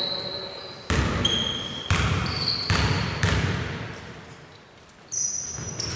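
A basketball bouncing on the court about five times, roughly a second apart with a longer pause before the last, as a player dribbles before a free throw. Short high sneaker squeaks come in between.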